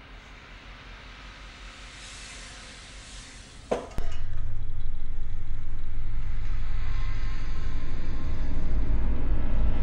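Suspense sound design for a thriller: a faint hiss that swells over a few seconds, a sharp hit, then a loud low rumbling drone that starts suddenly and holds.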